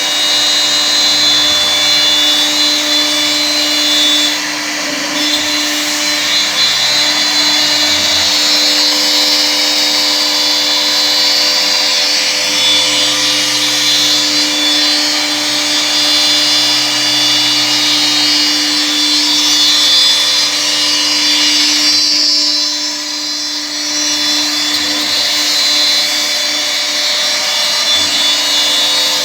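CNC router's 2 kW air-cooled spindle running at high speed with a steady whine while its bit routes into wood. The sound dips briefly about four seconds in and again around twenty-two seconds.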